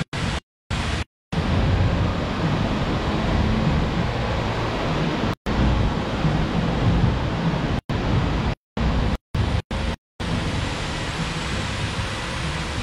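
Steady rushing, wind-like noise on an action camera's microphone, dropping out abruptly to silence several times, mostly in the second half.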